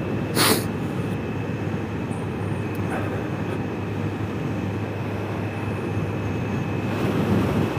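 Kawasaki Z H2 SE's supercharged inline-four running steadily at cruising speed under a steady rush of wind and road noise on the helmet microphone. A brief hiss comes about half a second in.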